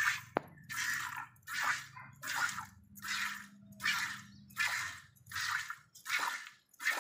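Hand milking: jets of milk squirting from the teats into a stainless steel bucket, a short hissing spurt about every 0.7 seconds, around ten in steady rhythm.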